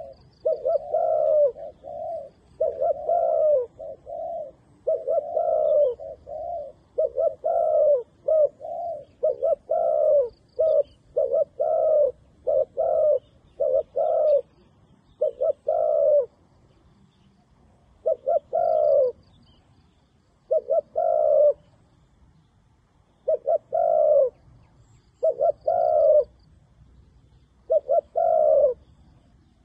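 Spotted dove cooing over and over in short phrases of two or three notes. The phrases come close together at first, then with longer pauses from about halfway through.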